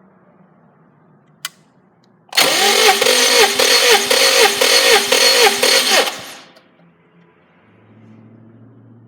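Subaru EJ205 turbo flat-four engine being turned over by its starter motor for about four seconds, a rhythmic cranking with regular compression pulses that winds down without the engine firing. A single sharp click comes just before the cranking.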